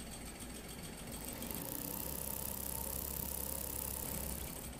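Small candle-heated model heat engines running, a faint, steady mechanical sound with a low hum and a high hiss that comes in about a second in.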